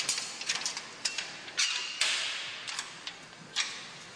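Irregular metallic clicks and clanks, about eight in all, over a fading hiss, the loudest about two seconds in with a short ringing tail.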